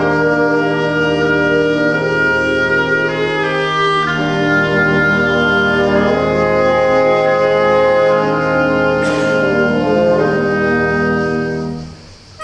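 Background instrumental music with brass and orchestra playing long held notes; it drops away briefly near the end, then comes back.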